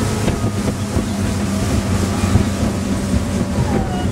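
Sea Ray 205 Sport's engine running steadily under way while towing a tube, a low drone, with water rushing past the hull and wind buffeting the microphone.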